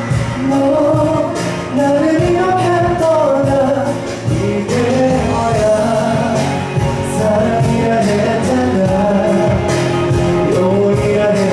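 Man singing a pop song live into a handheld microphone over instrumental accompaniment, holding long notes that bend in pitch.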